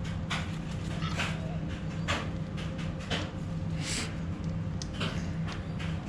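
Irregular metal clicks and short scrapes as a replacement trunnion is pressed into an LS1 rocker arm held in a vice, over a steady low hum.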